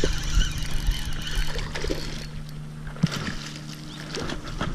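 A steady low mechanical hum with overtones, fading after about two seconds, over low wind rumble on the microphone; a couple of short knocks come in the second half.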